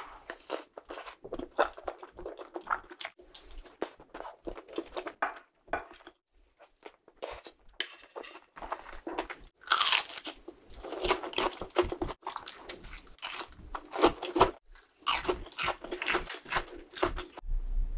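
Close-miked mouth sounds of eating fried egg curry with rice: chewing with short crunches and crackles, quieter for a couple of seconds midway, then louder and denser through the second half.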